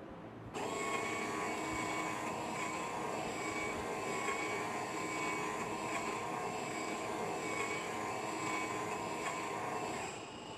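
Nescafe Gold Blend Barista coffee machine running after its button is pressed, a steady motorised whir that starts about half a second in and cuts off near the end as it dispenses a coffee.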